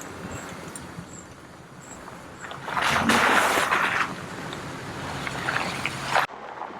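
A Jeep drives through a mud puddle, with a loud splash of muddy water about three seconds in over the steady hum of the engine and tyres.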